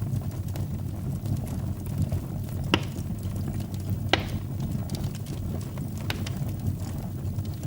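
Wood fire burning in a fireplace: a steady low rumble of flames with scattered crackles, two sharp loud pops a little under three and about four seconds in.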